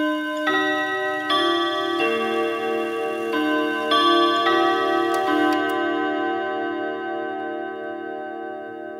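Grandfather clock chiming the half hour: eight notes struck in two phrases over about five seconds, then all ringing on together and slowly fading.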